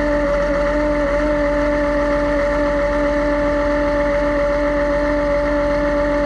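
John Deere 750J crawler dozer's six-cylinder diesel engine running at a steady speed shortly after a cold start at −21 °C, a constant hum with a steady tone over the low rumble.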